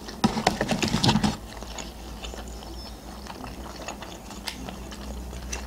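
Eating breaded McDonald's chicken nuggets: crunchy biting and chewing, loudest for about the first second and a half, then quieter chewing with occasional small clicks.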